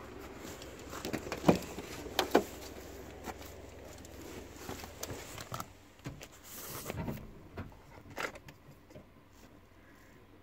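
Scattered knocks and clunks from someone handling a car with its engine off. Two sharp knocks come about one and a half and two and a half seconds in, then softer clunks.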